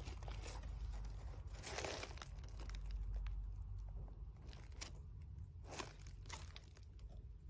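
Handling noise from coils of PVC-insulated wire and their plastic wrapping being touched: scattered soft rustles and crinkles, a longer one about two seconds in and a few sharper ones near the end, over a low steady rumble.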